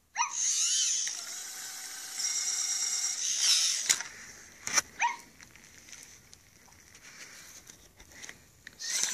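Zoomer robot dog's geared motors whirring loudly for about four seconds as it rolls over from playing dead and gets back up on its wheeled legs, followed by a few sharp clicks and quieter motor noise.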